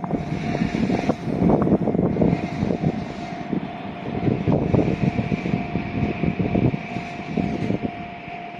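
Freight train running past over a level crossing, with a dense rumble and irregular clatter of wheels on the rails. A steady high tone runs through it. The rumble eases slightly toward the end.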